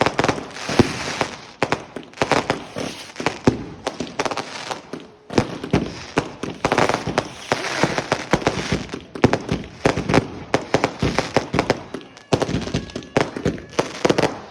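Fireworks going off in rapid, unbroken succession: many sharp bangs mixed with crackling.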